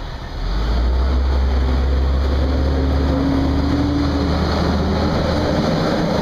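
Steady low rumble of a car on the move, heard from inside the cabin, with a faint engine hum in the middle.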